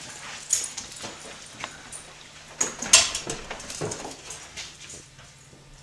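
A dog moving about on a hard floor, with scattered short scuffs and clicks, a couple of them louder about half a second and three seconds in, over a steady low hum.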